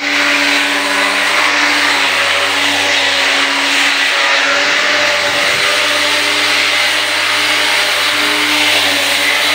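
An electric power tool running steadily at one speed: a constant motor hum under a loud rushing noise.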